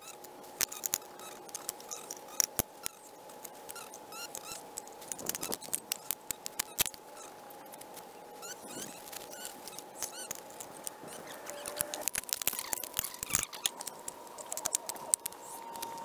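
A hand-held can opener cutting tin cans: an irregular run of sharp metallic clicks and ticks as it is worked around the rims, thicker in the second half.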